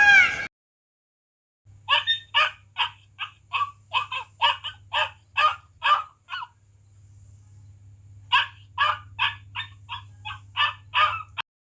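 A bird calling in two runs of short, rapid, repeated notes, about two to three a second, with a pause of about two seconds between the runs.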